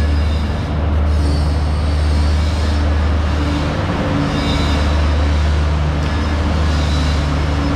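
An engine running steadily: a deep, even hum over a busy, noisy background.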